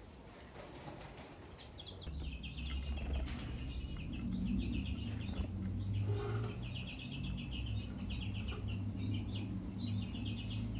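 Twites bathing: rapid fluttering splashes and wing flaps in a shallow water bath, mixed with small finch chirps, getting busier about two seconds in. A low steady hum runs underneath.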